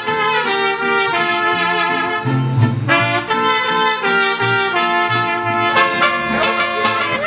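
Mariachi band playing: a trumpet carrying the melody over violins, strummed guitars and a deep guitarrón bass line, with the strumming growing sharper near the end.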